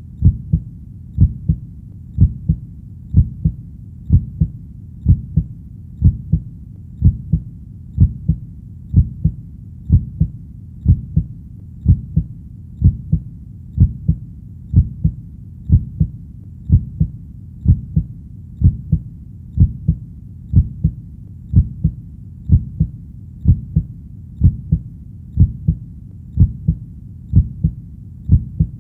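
Human heartbeat: a steady, low double thump (lub-dub) about once a second, over a faint continuous low rumble.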